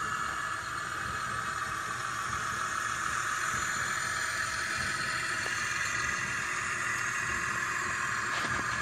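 Tractor engine running steadily, growing slightly louder.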